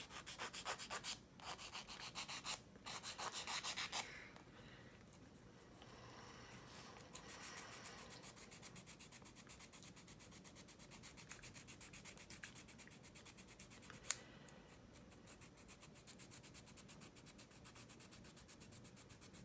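Small hand file rasping against a plastic model ejection seat, filing off molded-in seat belts. The filing is louder over the first four seconds, in three spells, then turns to fainter, steadier rubbing, with a single click about fourteen seconds in.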